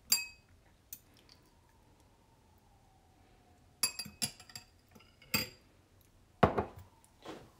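Several separate clinks and knocks of tableware: a metal spoon against a white ceramic bowl and a glass jar being handled on a wooden tabletop.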